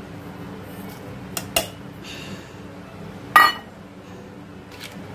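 Stainless steel bowls knocking and clanking against each other and the counter: two light knocks about a second and a half in, a short rustle, then a louder metallic clank with a brief ring a little past three seconds.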